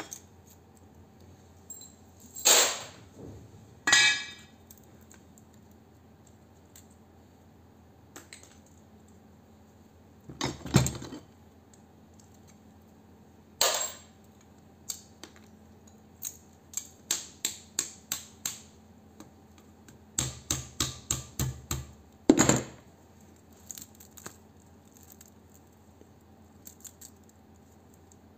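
Metal clinking and knocking as a small transformer is broken apart with pliers on a steel bench block. There are a few separate sharp knocks in the first half, then runs of quick light taps, about three a second.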